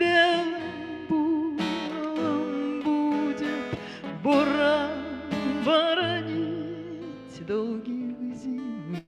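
Acoustic guitar strummed in a slow rhythm while a voice sings long, wavering notes with vibrato: an unamplified bard-style song.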